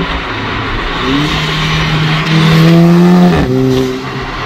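Turbocharged four-cylinder of a 2008 VW Golf GTI with a catless 3-inch downpipe, accelerating: the engine note rises for about two seconds, is loudest near the end of the climb, then drops sharply a little past three seconds in. The exhaust echoes off a concrete wall beside the road.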